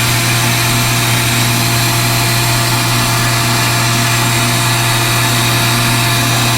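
Bee vacuum running steadily at low suction: a constant motor hum with an even rush of air.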